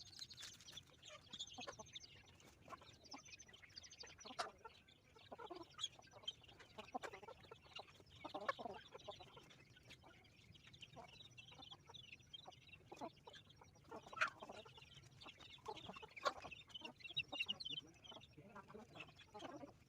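Free-range village chickens (ayam kampung) clucking softly while feeding on corn, with many sharp, scattered taps of beaks pecking at kernels.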